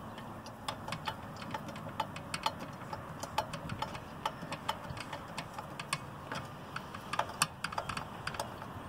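Light, irregular metallic clicks and ticks as a hand tool turns and seats the fasteners holding a chainsaw's cylinder and exhaust, a few clicks a second.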